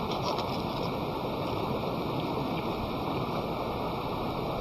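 Steady rushing outdoor background noise, like running water or wind on the microphone, with a few faint ticks about a fraction of a second in.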